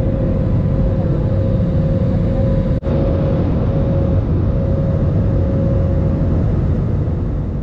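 Cabin noise inside an Airbus A320 climbing after takeoff: the steady rumble of the jet engines and rushing air, with a thin steady hum over it. The sound cuts out for an instant about three seconds in.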